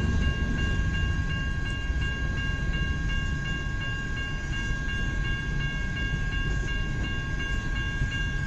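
Freight train of grain hopper cars rolling past: a steady rumble of wheels on the rails. A steady high ringing runs under it, its top tone pulsing a few times a second.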